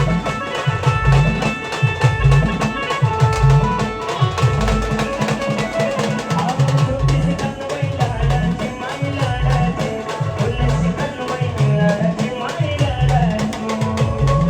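Band music: a steady, driving drum beat with low drum strokes that rise in pitch, under a sustained melody line.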